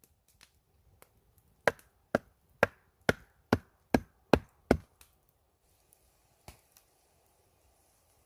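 Kitchen knife chopping on a wooden cutting board: eight sharp chops at about two a second, followed by a couple of faint taps.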